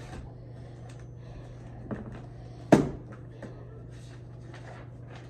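Paper and a folder being handled on a tabletop: faint rustling with a few short knocks, the loudest a sharp knock about halfway through, over a steady low hum.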